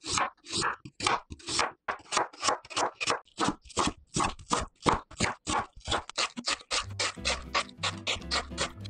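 Chef's knife slicing raw potato into thin strips on a wooden cutting board: a steady chopping rhythm of about three cuts a second. Background music comes in near the end.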